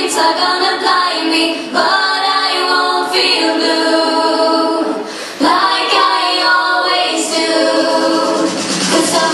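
A song with female vocals playing as dance music, with a short break about five seconds in.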